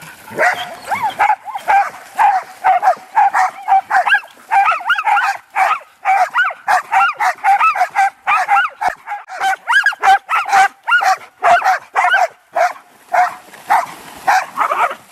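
Dog barking over and over in short, high barks, about three a second, with brief lulls twice.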